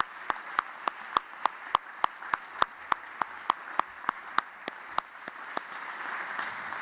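Congregation applauding, with one pair of hands close to the microphone clapping loudly in an even beat of about three and a half claps a second that stops about five and a half seconds in, while the crowd's applause goes on underneath.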